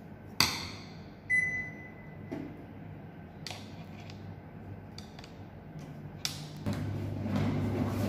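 Toshiba S-DD inverter top-load washing machine: a sharp click about half a second in, then a single electronic beep from the control panel lasting under a second, followed by a few light taps. Near the end a low steady hum sets in and grows as the machine starts to run with its lid-lock interlock bypassed by hand.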